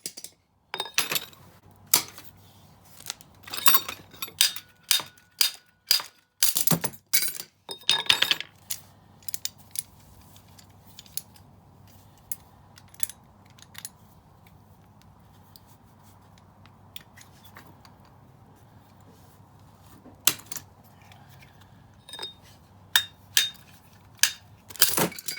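Metal hand tools clinking and knocking against metal in quick, sharp clicks, dense for the first eight seconds or so, then sparse over a faint steady low hum, and clustered again near the end.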